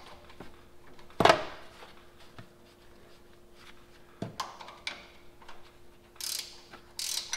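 Ratchet wrench clicking in short runs as it turns 14 mm strut top nuts loose, with a loud clank about a second in and a duller knock about four seconds in. A faint steady hum runs underneath.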